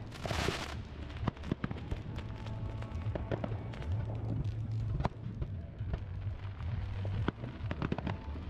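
Fireworks display: a run of sharp bangs and crackles from aerial shells and fans of comets bursting over the water, with a loud hiss in the first second and a steady low rumble underneath.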